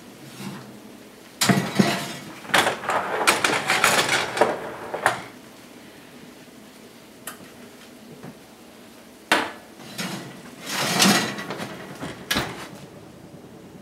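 Cast iron skillet being taken out of the oven and set down on an electric coil stovetop: a few seconds of metal cookware clattering, then a sharp knock, a short rattle and another knock near the end.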